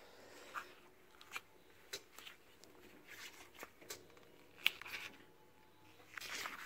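Faint, scattered metallic clicks and scrapes from a borrowed piston puller being worked into a motorbike brake caliper's piston bore to draw out a stuck piston, with gloved hands rustling against the tool; the sharpest click comes near the end.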